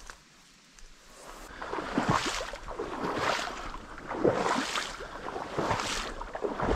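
Footsteps wading through shallow marsh water and reeds: a steady rhythm of sloshing and swishing, about one to two steps a second, starting about a second and a half in.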